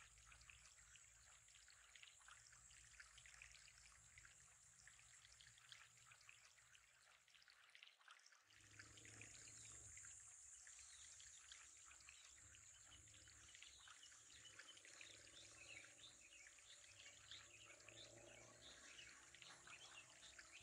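Faint trickling water in an aquarium, a fine steady patter, with a brief drop-out about eight seconds in.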